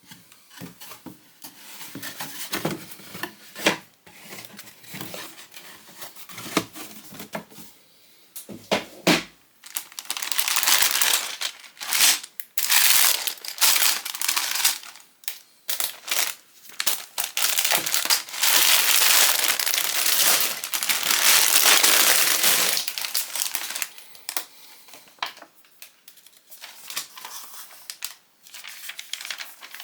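Plastic Lego parts bag crinkling as it is handled. Scattered crackles at first, then about ten seconds of loud, continuous crinkling, then lighter rustles near the end.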